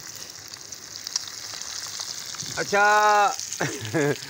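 Fish deep-frying in hot oil in a karahi, a steady high sizzle of bubbling oil.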